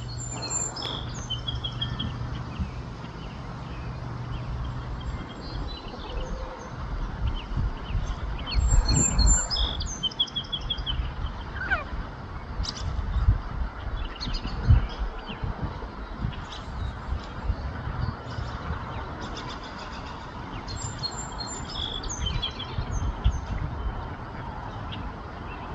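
Small birds chirping in short repeated trills and high notes, over a steady outdoor background with scattered low thumps, the loudest about nine and fifteen seconds in.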